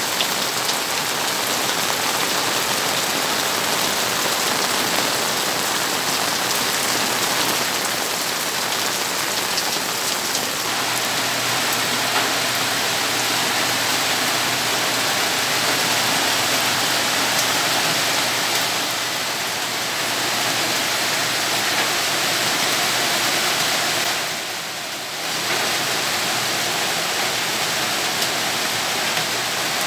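Steady rain falling on garden plants, wet ground and the water in an open plastic drum, a continuous even hiss that dips briefly near the end.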